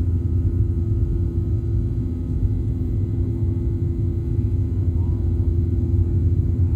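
Cabin noise inside a Boeing 737-800 climbing after takeoff: the steady low rumble of its CFM56-7B turbofan engines, with a steady low hum.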